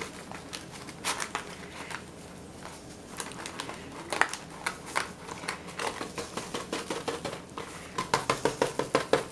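Rustling and crinkling of an instant vanilla pudding mix packet as the powder is poured out into a steel mixing bowl, with a quick series of light knocks near the end.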